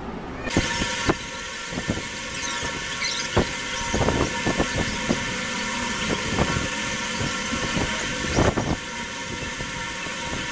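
Fast-forwarded sound of a metal wire guard being fitted and tightened onto a farata fan: a string of quick, irregular clicks and metallic knocks over a steady hiss, pitched up by the speed-up.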